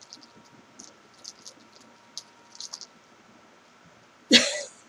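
Soft clicks and rustles of eyeball yarn being handled and wound between the hands, then a short laugh near the end.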